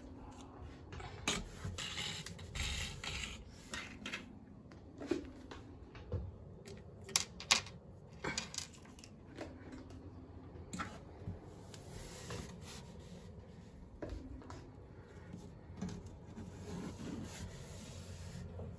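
Small objects being picked up and set down on a hard shelf, giving scattered light clicks and knocks, with rubbing and brushing sounds in between as the surface is wiped and brushed clean.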